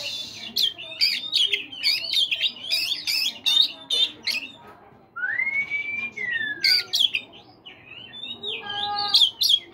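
Male Oriental magpie-robin singing a fast run of varied chirps and whistles, with one long whistle that rises and then falls about halfway through, a short pause, and rapid notes again near the end.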